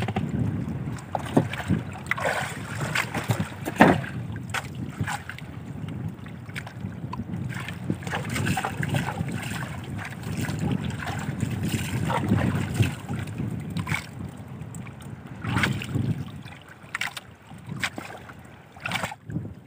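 Wind buffeting the microphone and water washing against the hull of a small outrigger fishing boat, with scattered knocks and clicks as a handline is worked over the side.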